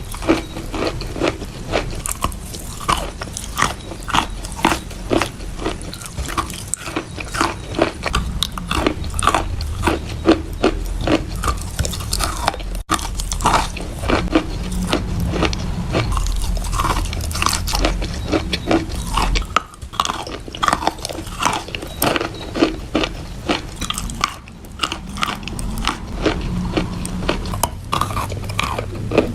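Close-up biting and chewing of wet chalk: a continuous run of crunches, several each second, with a few abrupt breaks.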